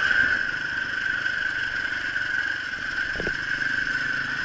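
Enduro motorcycle's single-cylinder engine running steadily as the bike rides along a dirt track, with a steady high-pitched whine over it.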